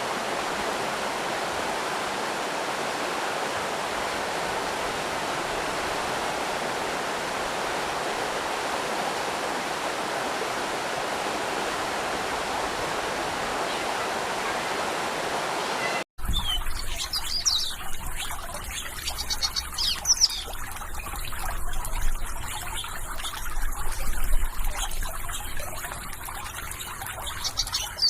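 Steady rush of flowing water, a stream or small waterfall. About sixteen seconds in it cuts off abruptly, and small birds chirp in quick, high calls over a fainter trickle of water.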